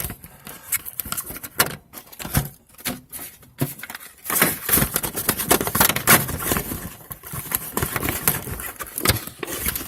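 Close handling noise: irregular rustling, knocks and clicks of things being moved and fumbled right at the microphone, louder in the second half.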